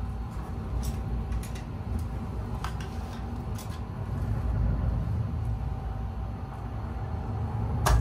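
Small kindling fire burning under a pot of rice: a low rushing rumble that swells and fades, with scattered crackles and pops and a sharper crack near the end.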